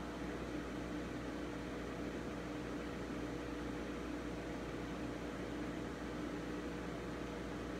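Steady machinery hum with a fan-like hiss and two steady tones, typical of running cooling fans and electrics.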